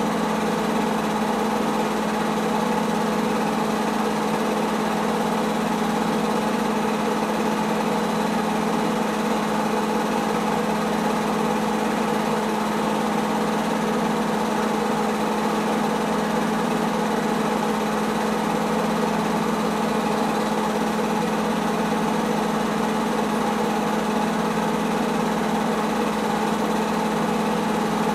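Film projector running steadily: an even motor whir with a constant low hum, no change in speed.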